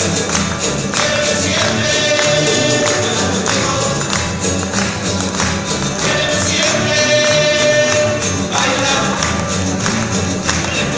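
A rondalla ensemble of many acoustic guitars strumming together with light percussion, playing a song live in a steady strummed rhythm.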